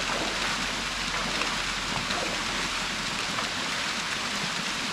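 Small waterfall pouring into a rock swimming hole: a steady, even rush and splash of falling water.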